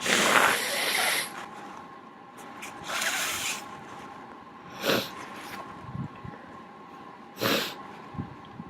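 A person with a congested nose from a cold blowing their nose: a long, loud blow of about a second, a shorter blow around three seconds in, then two brief sharp bursts near the middle and the end.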